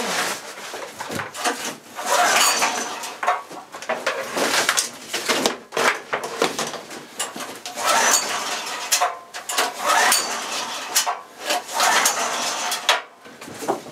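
6500-watt portable generator being cranked over and over with its pull-start, the engine turning but not catching: a string of clattering bursts about one every second or two, with no running engine. The generator has sat unused for a long time.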